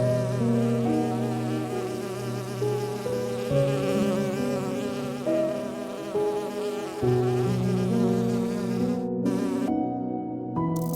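Calm instrumental background music with long held notes, over a wavering high buzz that cuts off about nine seconds in.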